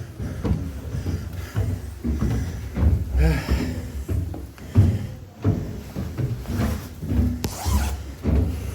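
A person panting hard and fast while climbing a long flight of stairs, with thudding footsteps. A brief voiced sound comes about three seconds in.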